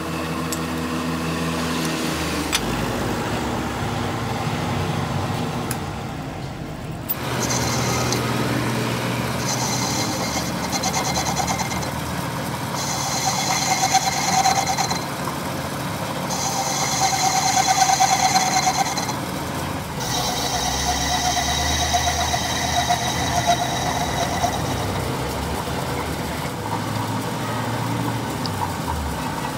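Metal lathe running with a generator engine crankshaft spinning in its chuck, as a tool bit cuts the end of the shaft in several stretches of a few seconds each, each with a high-pitched cutting whine over the steady hum of the machine. Near the end a drill in the tailstock bores into the shaft end.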